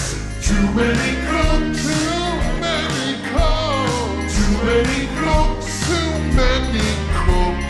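Vaporwave music: a remix of a TV theme song, with a gliding melody over a drum beat and a sustained bass.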